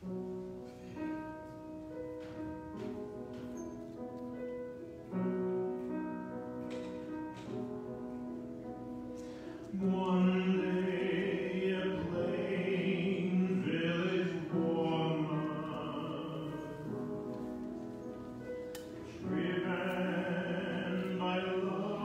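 Instrumental accompaniment playing held chords, then about ten seconds in a solo male voice begins singing over it with vibrato, amplified through a microphone.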